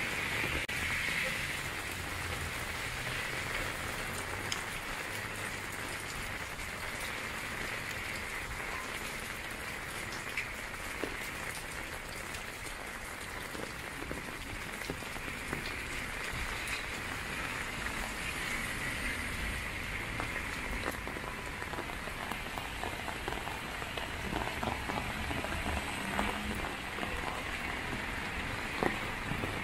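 Heavy rain falling steadily on wet pavement and on an umbrella held overhead, with a few sharper drop ticks.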